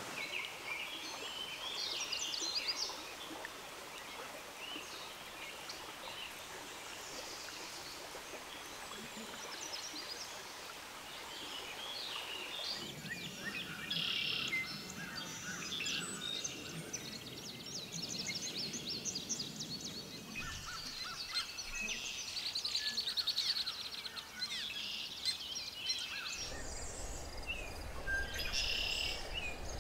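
Several songbirds singing and calling at once: short high chirps, whistles and trills overlapping. About three-quarters of the way through, a steady low rush of outdoor noise comes in underneath.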